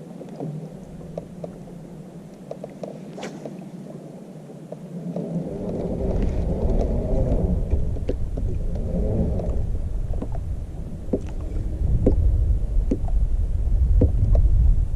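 Wind buffeting the microphone on a kayak, a low rumble that comes in about five seconds in and keeps on, with scattered small clicks and knocks.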